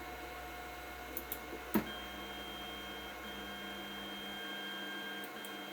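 A 3D printer running: a steady electrical hum, a few sharp clicks about a second and a half in, then a steady high whine over a lower drone from about two seconds in, broken by short gaps, as its stepper motors move.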